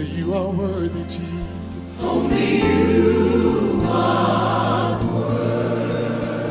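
Gospel choir music, the voices singing held chords over a deep bass, swelling louder about two seconds in.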